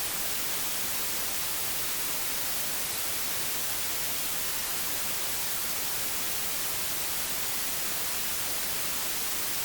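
Steady static hiss, like white noise, even and unchanging throughout.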